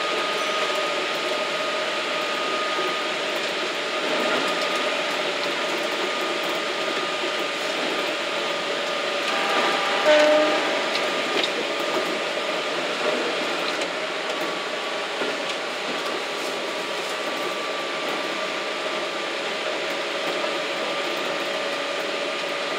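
A Keikyu limited express train running at speed, heard from the driver's cab: a steady rushing noise with a constant whine. About ten seconds in it briefly gets louder, with a short cluster of tones.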